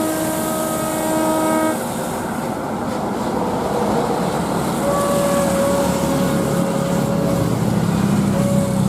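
Jet airliner engines running with a steady loud roar; a set of whining tones over the roar stops about two seconds in, and a single new tone comes in about five seconds in.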